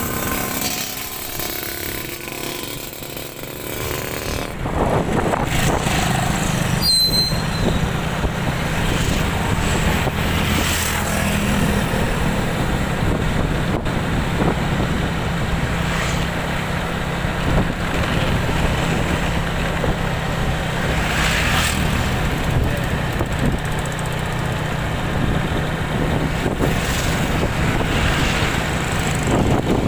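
An engine running steadily under a constant rushing noise. It is a little quieter for the first four seconds or so, then holds steady.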